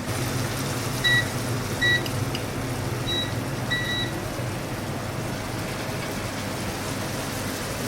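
Several short electronic beeps from a kitchen appliance's control panel, four or five in the first four seconds, over a steady hum of kitchen background noise.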